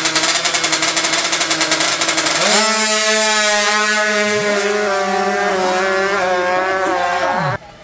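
Drag-racing motorcycle engine revved hard at the start line with a fast pulsing, then launching and pulling at high revs down the strip. Its pitch dips briefly at gear changes and falls away just before the sound cuts off sharply near the end.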